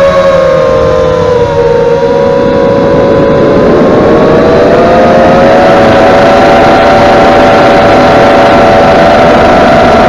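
Whine of an FPV multirotor drone's Emax 2300Kv brushless motors, recorded from on board. The whine dips in pitch, climbs again about halfway through as the throttle comes up, then holds steady as the drone flies fast and low.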